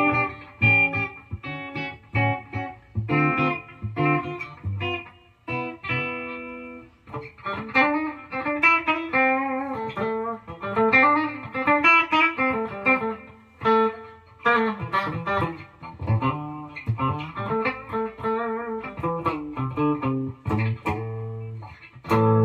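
Firefly FFLG SG-copy electric guitar on its bridge humbucker, played through a Fender combo amp: strummed chords for the first several seconds, then single-note runs with bent notes. The guitar has slipped out of tune, as the player notes right after.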